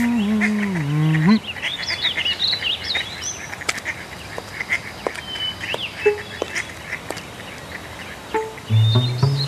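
A low, wavering whimpering cry that dips in pitch and stops about a second and a half in, then scattered bird chirps and twitters. A low voice sound begins near the end.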